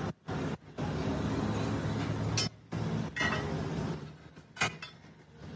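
A few sharp metal clinks as a perforated steel strip is handled against a front axle beam, over a steady low hum. The loudest clink comes near the end.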